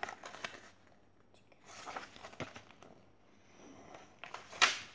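Paper rustling and handling noise from a paperback picture book being turned and moved about, in a few short crackly bursts with a sharper, louder brush near the end.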